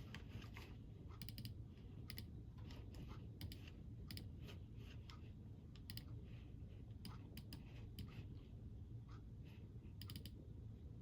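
Faint, crisp crunches from a crunchy snack being chewed, coming irregularly at about one to three a second over a steady low rumble.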